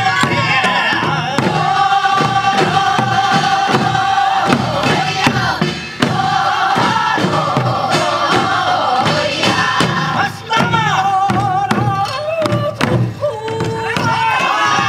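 Group of voices singing a Korean rice-field work song (deulsori), with long held notes, over steady beats of a buk barrel drum, as sung for transplanting rice seedlings.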